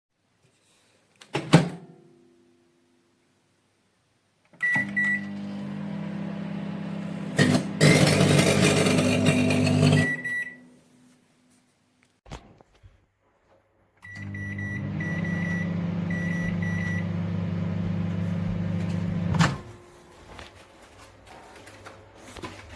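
Toshiba MW3-AG20PF microwave oven running twice with a steady low hum, each run started with short high beeps from its controls. A sharp click comes early, the first run has a louder, rougher stretch partway through, and the second run ends with a knock.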